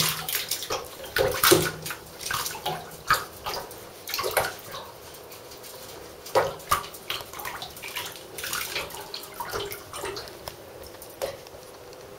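Irregular wet splashes and patters as a ferret moves around in the little water left in a bathtub, denser in the first half and thinning out towards the end.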